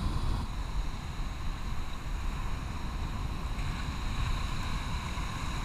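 Steady low rumble of wind on the microphone mixed with the wash of choppy sea surf.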